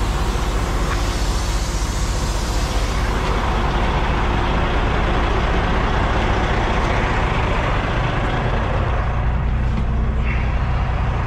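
Kenworth semi truck's diesel engine idling steadily, with a hiss of air at the start that fades out over the first few seconds.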